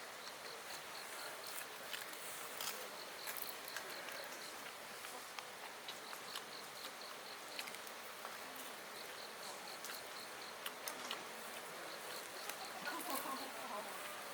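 An insect chirping in trains of quick, high-pitched pulses, which pause for a few seconds in the middle. Scattered light clicks and taps sound throughout.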